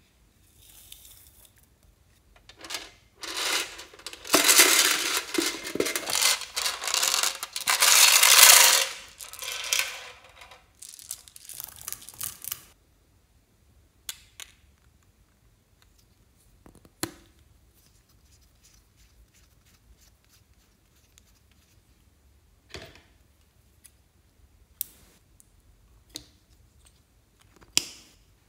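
Small plastic sequin confetti and beads poured into a glass dish of slime: a dense rattling shower lasting several seconds. After it come a handful of separate sharp plastic clicks and taps from lip balm tubes being handled.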